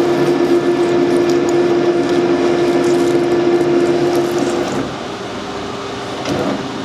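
Metal lathe running under power while screw-cutting a coarse 4 TPI thread, with a steady pitched drone from its drive. About two-thirds of the way through the drone drops away, leaving a quieter steady machine noise.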